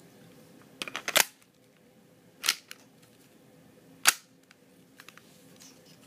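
Sharp clacks of an HFC HG18C airsoft Glock pistol's mechanism being worked by hand: a quick cluster about a second in, then single clacks at about two and a half and four seconds.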